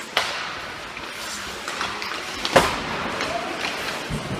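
Ice hockey play: a steady scraping hiss of skates on the ice, with sharp stick-and-puck knocks. The loudest is a hard crack about two and a half seconds in.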